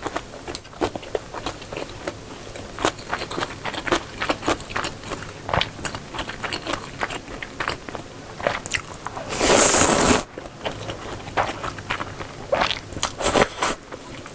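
Close-miked eating of janchi guksu, thin wheat noodles in broth: chewing with many small wet clicks throughout. There is a loud slurp lasting about a second some nine seconds in, and a shorter one near the end.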